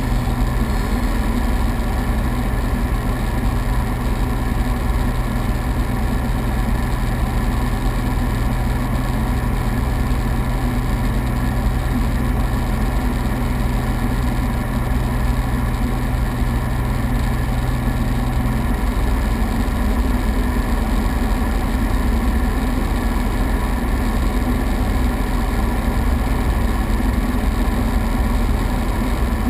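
Piper Saratoga's single piston engine and propeller droning steadily in cruise descent, heard inside the cabin with airflow noise. One low tone in the drone drops away about two-thirds of the way in, while the overall level stays the same.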